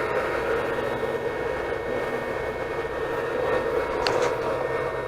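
Anycubic Chiron 3D printer running mid-print: a steady whir of its cooling fans and motors, with a couple of faint ticks about four seconds in.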